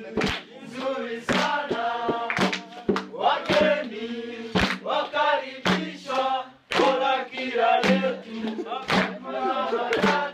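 Background music: chanting voices over a steady low drone, punctuated by sharp drum hits.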